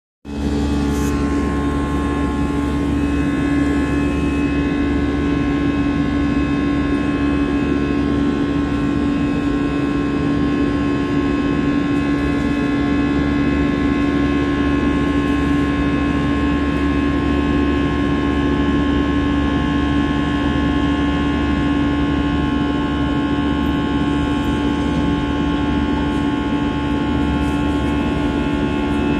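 Steady machine hum from a motor running at constant speed: several held tones over a low rumble, unchanging throughout.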